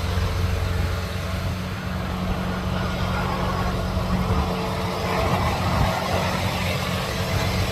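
Semi truck's diesel engine running steadily with a low, even hum.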